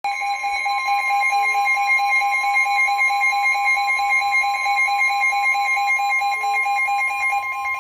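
Emergency Alert System attention tone: a loud, steady, harsh two-tone alarm held without a break. It signals that an emergency warning is about to be broadcast.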